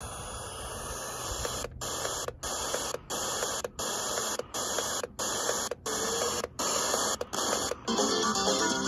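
Borne portable radio's speaker hissing with FM static between stations, cut off by about ten brief silences, one for each step up of the tuning. Near the end a station tunes in and music plays through the speaker.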